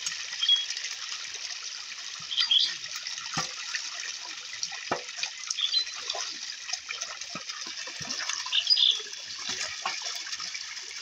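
Pond water splashing and sloshing as a fishing net is hauled through it: a steady watery hiss broken by many short, irregular splashes.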